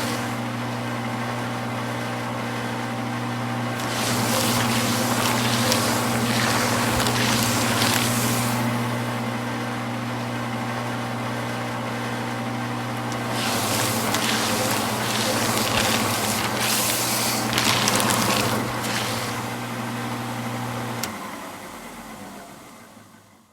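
Electric paper shredder motor running with a steady hum while paper is fed through and torn up in several stretches of loud crackling, about 4 s in, about 13 s in and again around 17 s. The motor stops about 21 s in and the sound fades out.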